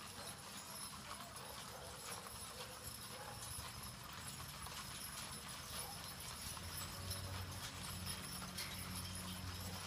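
Mules' hooves clip-clopping on a paved road as mule-drawn wagons pass at a walk, many hoofbeats overlapping. A low steady hum comes in about two-thirds of the way through.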